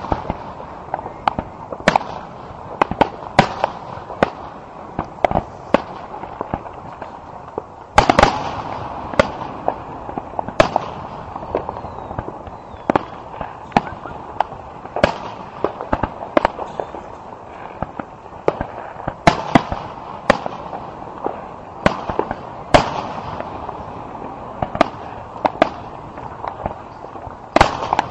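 Aerial fireworks shells bursting in an irregular, continuous run of sharp booms and pops over a steady background din, with the heaviest bangs about eight seconds in and again near the end.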